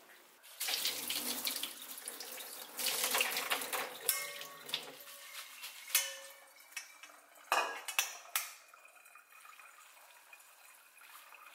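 Water splashing and running through a fine mesh strainer of cooked rice vermicelli for several seconds, then a few separate sharp knocks and clinks as the strainer and noodles are handled.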